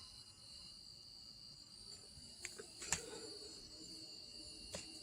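Faint, steady, high-pitched insect chirring, with a few soft clicks.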